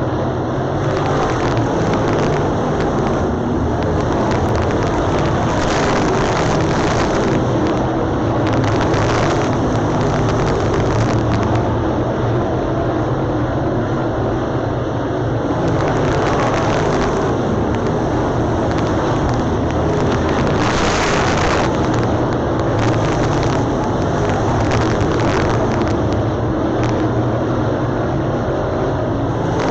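A pack of dirt late model race cars running under power, their V8 engines making a loud, continuous wash of engine noise that swells several times.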